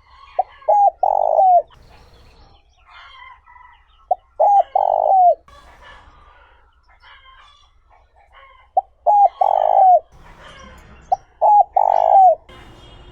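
Spotted dove cooing: four phrases, each of two or three short notes and then a longer coo that drops in pitch at the end. Faint chirps of small birds fill the gaps between phrases.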